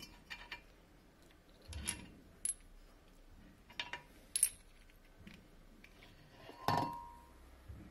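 Light metal clinks and taps as the nut, washer and spacer are worked off an outboard motor's propeller shaft and the stainless steel propeller is handled, about six in all. The loudest comes near the end, with a short ring, as the propeller is gripped to be pulled off.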